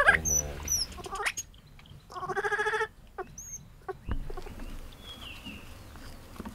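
Baby vervet monkey calling: a rapid, pulsing, stuttering call at the start and another of under a second about two seconds in. Faint high bird chirps, and a few soft scuffling knocks about four seconds in.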